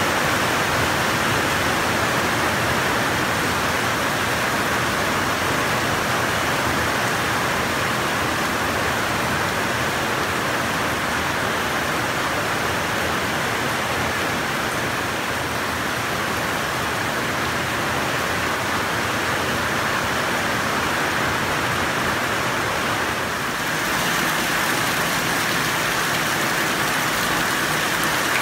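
Heavy rain falling steadily, water streaming off a roof edge and down a concrete wall. About 23 seconds in, after a brief dip, it becomes rain splashing into water-filled plastic buckets.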